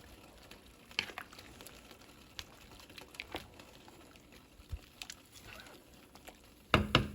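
Chicken pieces going into a pot of boiling beans: light knocks and splashes spaced a second or so apart over faint boiling, with a few louder knocks near the end.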